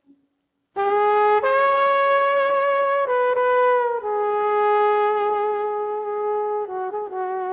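Music: after a brief silence, a slow melody of long held brass-like notes, each lasting about a second or more, with quicker shorter notes near the end.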